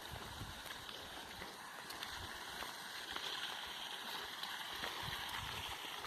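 Steady rush of water from a waterfall, with a few low bumps on the microphone.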